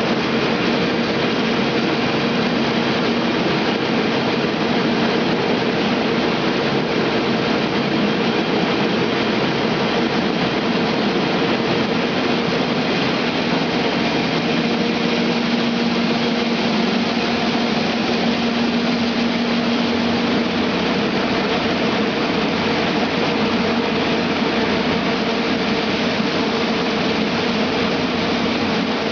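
Grain crimper (roller mill) running steadily, a continuous loud machine noise with a constant hum.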